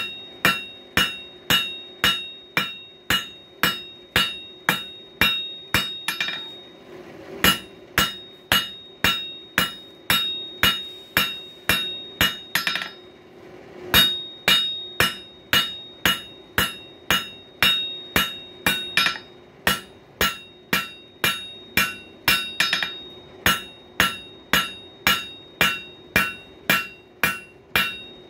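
Blacksmith's hand hammer striking a hot bar of coil-spring steel on an anvil, about two ringing blows a second, squaring up the stock to draw out a screwdriver bit. The rhythm breaks twice for a moment, and a faint steady hum runs underneath.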